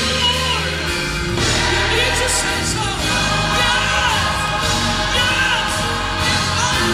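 A woman singing a gospel solo into a microphone, her voice sliding and bending between notes, over live accompaniment with sustained bass notes and a choir behind her.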